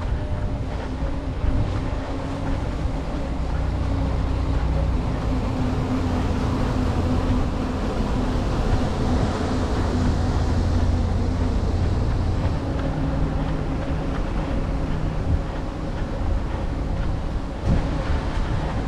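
A steady low mechanical hum, like an engine running, with a few held tones, under an even rushing noise.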